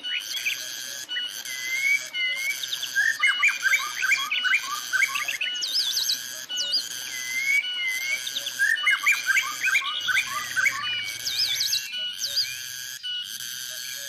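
Cicadas droning in a pulsing chorus, about one pulse a second, with songbirds whistling and giving quick rising chirps over it, busiest in two flurries.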